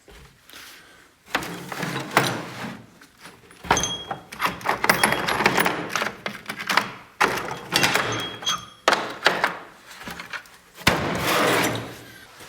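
Metal clanking, knocking and scraping as tools and rusted exhaust parts are handled, with a couple of short metallic rings.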